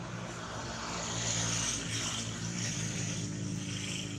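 A steady low motor drone, like an engine running, under a high insect buzz that swells a second or so in.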